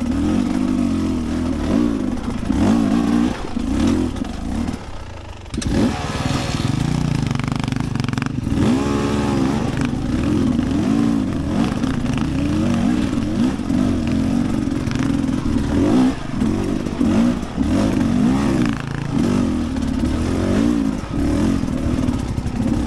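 Dirt bike engine revving up and down as the throttle is worked, easing off briefly about five seconds in before picking up again.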